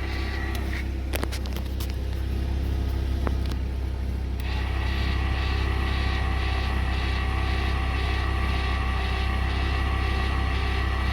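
Truck engine idling with a steady low hum, with a few sharp clicks in the first seconds. About four seconds in, a steady higher motor whine joins and runs on.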